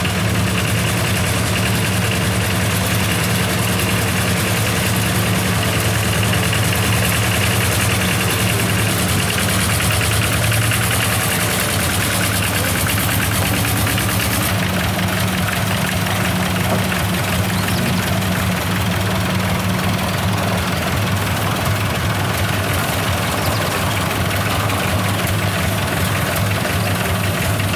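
Tractor engine running steadily at an even speed, a low, even drone.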